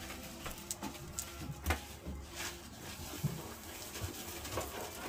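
Kitchen knife slicing raw pork on a plastic cutting board: faint, scattered taps and scrapes of the blade against the board.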